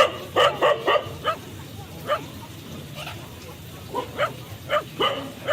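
A dog barking in sharp, short barks: a quick run of four in the first second, then single barks every second or so, and another quick run near the end.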